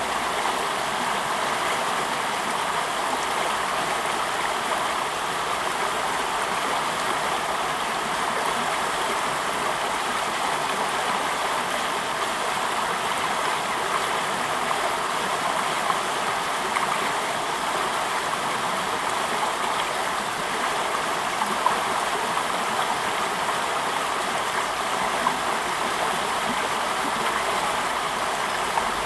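Fast-flowing stream rushing and gurgling over rocks, a steady even rush, with a few brief ticks standing out.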